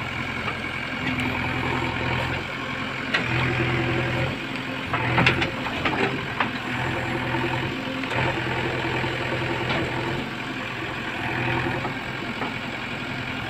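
Diesel engine of a JCB backhoe loader running under changing load, its note rising and falling every few seconds, with a few sharp knocks about five to six and a half seconds in.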